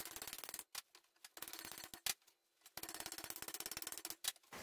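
Faint, quick runs of light metallic taps with short pauses between them, and one sharper knock about two seconds in: a hammer shaping 18-gauge sheet steel around a steel tube held in a bench vise.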